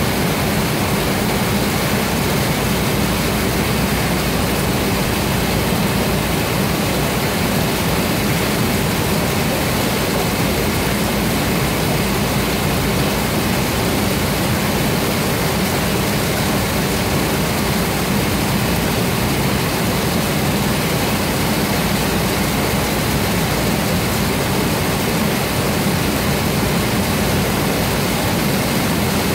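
A heavy stream of treated wastewater gushing from a pipe outlet and splashing onto a metal grating, a steady, unbroken rush.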